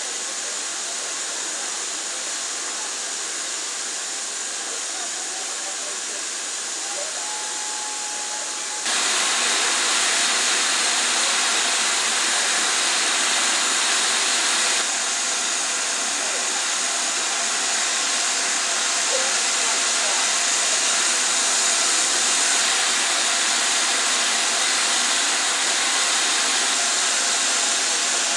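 Steam locomotive 70013 Oliver Cromwell, a BR Standard Class 7 Britannia Pacific, hissing steadily as steam escapes; the hiss steps up louder about nine seconds in.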